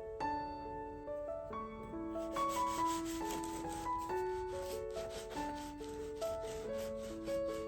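Rapid, even scraping strokes, about five a second, begin about two seconds in over gentle piano background music.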